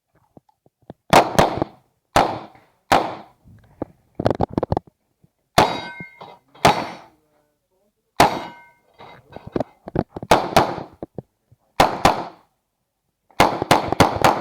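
A string of 9mm pistol shots from an Uzi Pro, fired in singles and quick doubles with short pauses between strings. Several shots are followed by the ring of steel targets being hit.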